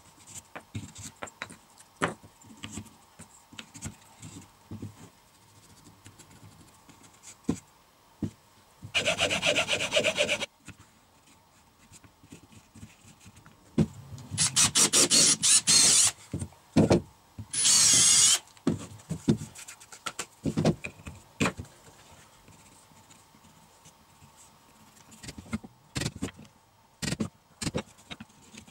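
Wooden parts and an MDF jig being knocked and shuffled on a wooden workbench, with light clicks, interrupted by a few short loud bursts of a drill bit boring and scraping into MDF around the middle.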